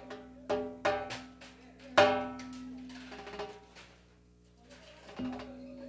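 Loose, separate struck notes and chords from an instrument being tried out during a sound check, each ringing and dying away, the loudest about two seconds in. A steady electrical hum runs underneath.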